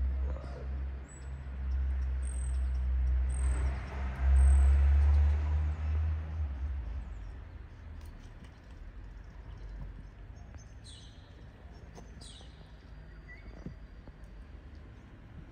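A low rumble swells for the first several seconds and then fades away. Birds chirp outdoors: a few short high chirps early on, then two quick falling calls near the end.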